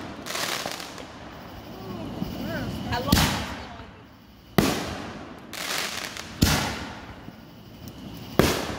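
Aerial fireworks going off: four loud bangs about one and a half to two seconds apart, with crackling between them.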